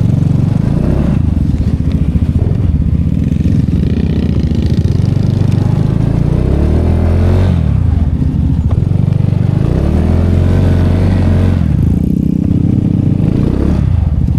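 Small motorcycle engine revving up and falling back several times, the rider working the throttle to get the bike moving on a muddy track where it has got stuck.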